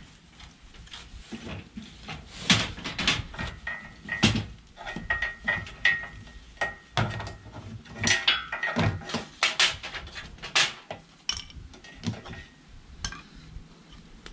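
Irregular metal clanks, knocks and rattles of a caravan's fold-down metal entry step being worked off the chassis and set down on concrete, its frame and mesh tread knocking together.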